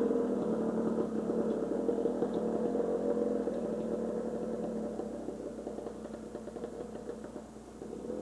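Yamaha YZ dirt bike engine running out of sight, fading as the bike moves away, then growing louder again near the end.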